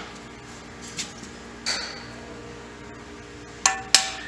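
Hammer blows on a steel punch, driving a stuck knee lock out of a Bridgeport milling machine's cast iron knee. There are four sharp metallic strikes: two spaced out early on, then two in quick succession near the end, the last ones ringing briefly.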